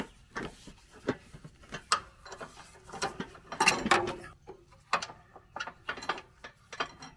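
Irregular metal clicks and rattles as the gloved hand handles the parts of a riding lawnmower's deck linkage. The clicks are densest about halfway through.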